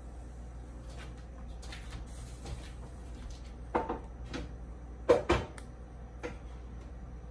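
Kitchen items being handled: a few short knocks and clacks, the loudest a close pair about five seconds in, over a steady low hum.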